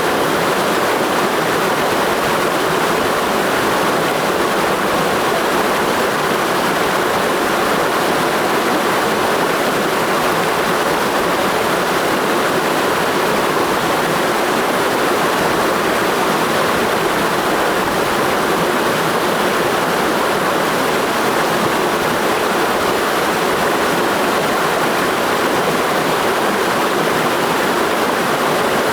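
Mountain stream rushing steadily over rocks, a constant even rush of water.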